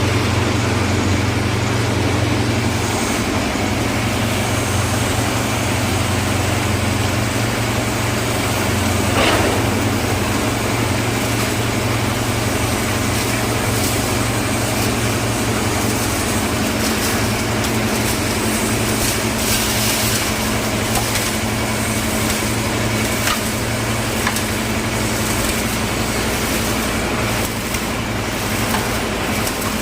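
Concrete mixer with lift hopper running steadily: a constant engine drone under a dense mechanical wash, with a few faint clicks.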